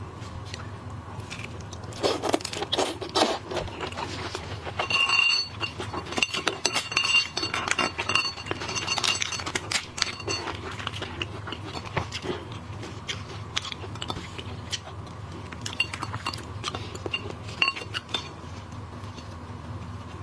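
Dishes and utensils clinking, with many scattered sharp clicks and a run of ringing clinks about five to ten seconds in, over a steady low hum.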